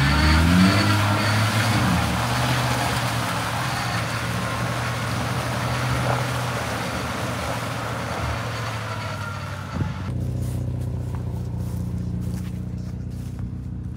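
A Ford pickup's engine revs up, then runs at steady high revs under a loud hiss during the recovery of the stuck truck. About ten seconds in it cuts to a quieter idling engine, with footsteps on wet ground.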